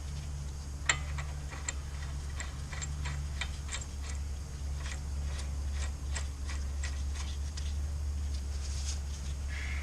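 Light, irregular metallic clicks, about two a second, as the axle nut is run onto the threaded end of the new CV axle, over a steady low hum.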